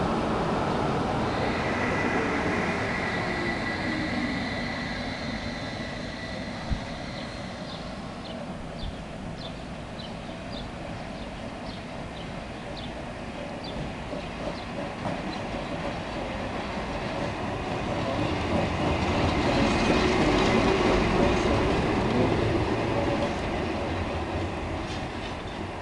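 Trams running on street rails. First a modern articulated tram moves off with a steady high whine and a falling motor hum. After light ticks from the rails, a historic tramcar rolls past, its motor and wheels growing louder and then fading near the end.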